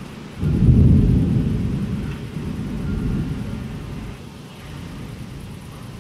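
Thunder: a loud, deep rumble that starts suddenly about half a second in, swells again around three seconds and fades out.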